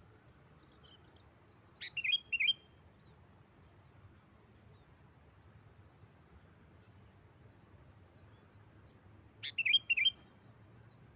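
Sooty-headed bulbul (kutilang) singing two short phrases, one about two seconds in and another near the end, each a quick run of a few notes, with faint scattered chirps between them.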